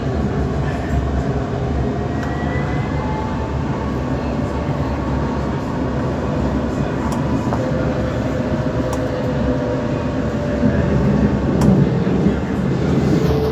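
Alstom Citadis tram of the Dubai Tram, heard from inside the passenger car while running: a steady rumble of wheels on rail under the electric drive's whine, whose pitch drifts slowly with speed, with a few sharp clicks and a slight rise in loudness near the end.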